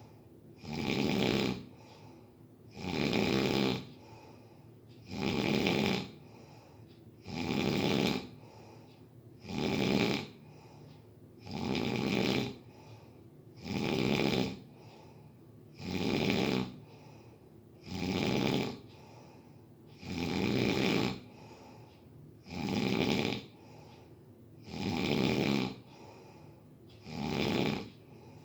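Snoring in a steady rhythm, about one loud snore every two seconds. Each snore lasts roughly a second, and a fainter breath falls between them.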